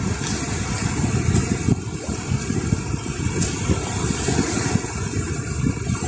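Wind buffeting the phone's microphone in a low, unsteady rumble, over the wash of small waves breaking on a pebble shore.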